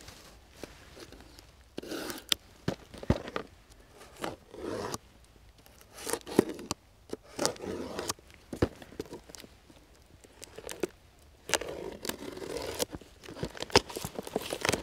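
A blade slicing through packing tape on a cardboard parcel in short, scratchy strokes, with sharp clicks and rustling of the box between them. The parcel is heavily taped, so the cutting comes in repeated bursts with pauses.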